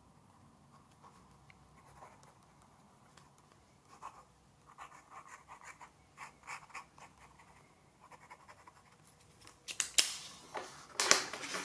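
Fine-nibbed Nahvalur fountain pen scratching on paper as a line of words is written, then a quick run of short hatching strokes. Near the end, louder paper rustling as the notebook sheet is handled to be turned over.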